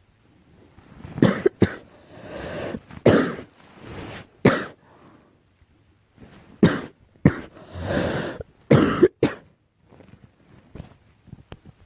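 A girl coughing repeatedly in short bouts, with drawn breaths between them and a quieter spell near the end.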